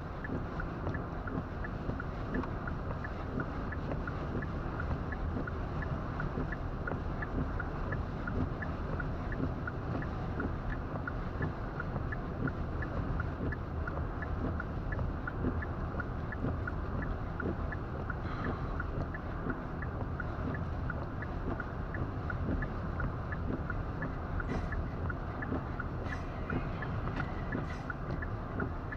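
Steady in-car driving noise, engine and tyre rumble with wind against the car, and a faint regular ticking running through it.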